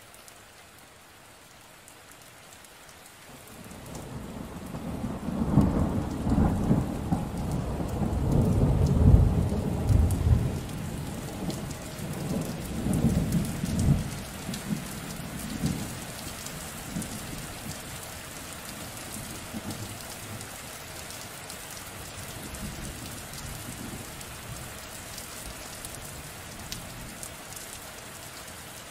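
Steady rain with a long rolling rumble of thunder that builds about four seconds in, peaks twice, and dies away by about sixteen seconds, leaving the rain alone.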